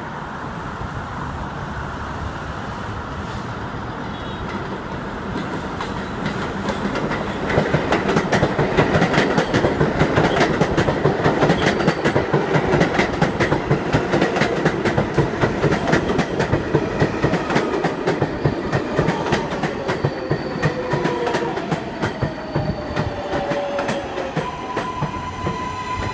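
An R188 subway train arriving on an elevated line: a swelling rumble and rapid clickety-clack of steel wheels over rail joints as it rolls in, then a whine falling in pitch as it brakes. Near the end it settles into a steady hum as it comes to a stop.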